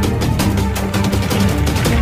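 Background music with a fast, steady beat over sustained low notes.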